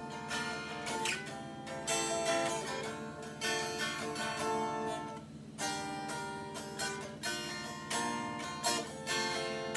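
Strat-type electric guitar with a clip-on capo on the neck, chords strummed one after another with a short break about five seconds in.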